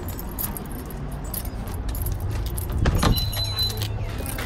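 Small metal jingling and clicking while walking, over a steady low rumble. About three seconds in comes a louder clatter as the shop's door is pulled open, with a short high squeal.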